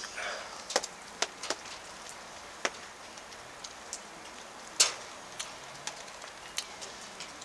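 Scattered sharp ticks and clicks, about a dozen, over a faint steady hiss, with one louder click about two-thirds of the way through.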